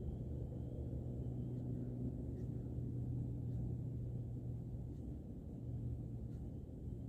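A boat motor running with a steady low hum, dipping briefly about two thirds of the way through, with a few faint clicks over it.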